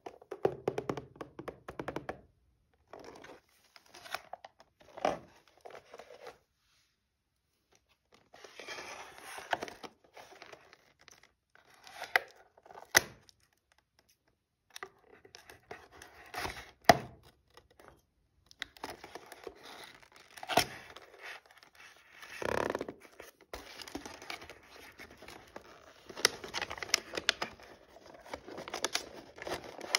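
A cardboard toy box with a clear plastic window being handled close up: fingernails scratching and tapping on the card and plastic, with crinkling and occasional sharp taps. It comes in separate bursts broken by several clean silent gaps.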